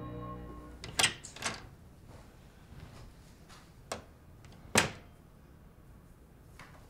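A door being opened and closed: latch clicks about a second in, then a few knocks, the loudest about five seconds in.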